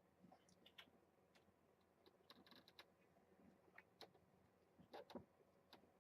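Near silence: room tone with faint, irregular short clicks and taps.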